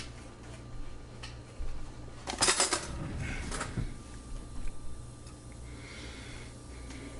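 Kitchenware being handled: a brief clatter about two and a half seconds in and a smaller one about a second later, over a steady low hum.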